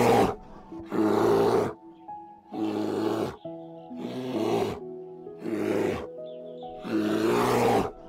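Young bears growling at each other while sparring: about six harsh growls, each under a second long, coming roughly every second and a half. Soft background music with sustained tones runs underneath.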